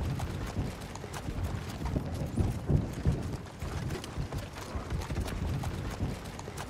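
Draught horses' hooves plodding irregularly through deep mud, a run of dull thuds with small scattered clicks and clinks.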